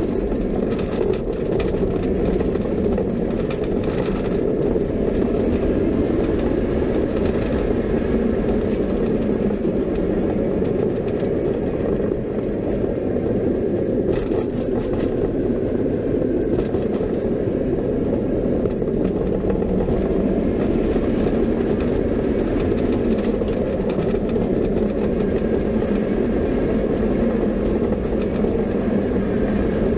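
Roller coaster train running on its track: a steady rumble and rush of wind with no break.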